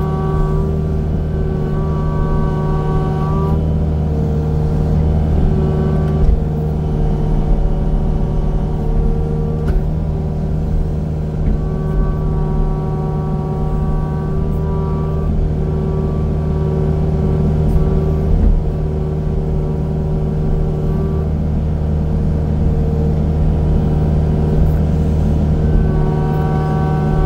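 Engine of a land-clearing machine running steadily while knocking down trees, with a higher whine that comes and goes every few seconds.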